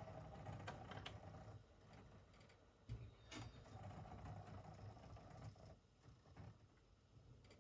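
Near silence, with a few faint scattered clicks, one a little clearer about three seconds in.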